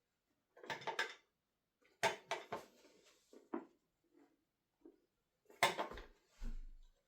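Small hard parts, likely metal lathe pieces or accessories, clinking and clattering as they are handled and set down, in four short bursts, with a low thump near the end.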